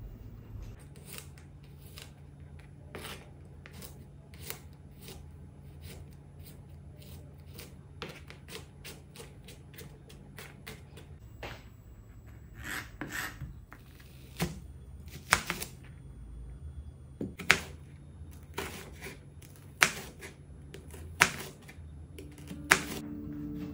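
Kitchen knife slicing an onion on a plastic cutting board: a run of light clicks and taps, with sharper knocks of the blade on the board coming more often in the second half.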